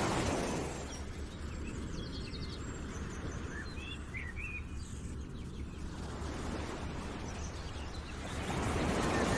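Outdoor ambience: a steady low rumble with a few short bird chirps in the middle, and a louder swell of rushing noise at the start and again near the end.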